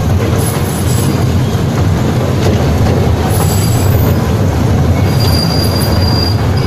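Train running on rails, a steady rumble of wheels on track, with thin high wheel squeals a little past halfway and again near the end.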